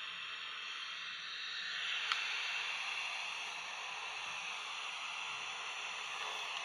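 Small AM/FM kit radio's speaker giving out steady hiss and static, tuned between stations, with a single click about two seconds in.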